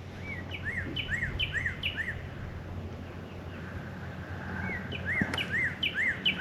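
A songbird singing a phrase of a short high note and a lower arched note, repeated four or five times at about two a second. After a pause of a couple of seconds it sings another run of the same phrase.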